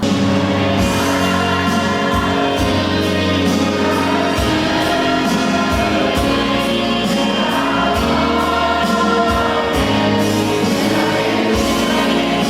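Music with singing voices over a steady drum beat, cutting in abruptly at full level.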